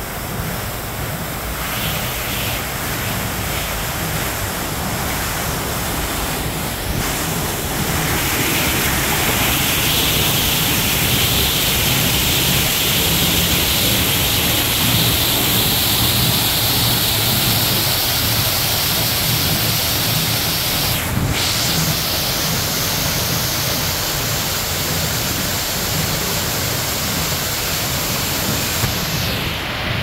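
Artificial indoor waterfall: a steady rush of falling, splashing water, growing louder about eight seconds in.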